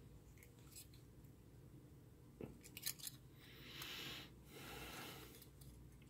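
Mostly near silence, with a few faint metallic clicks as a quarter-inch mono jack is fitted into a circuit-board front panel, followed by two soft hissy swells.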